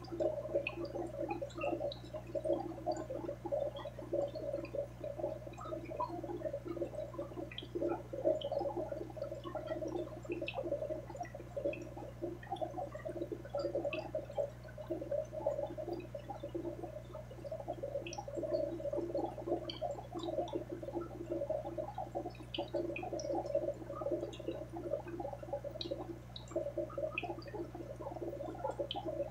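Aquarium water bubbling and gurgling without a break, with small pops of bubbles breaking, over a low steady hum.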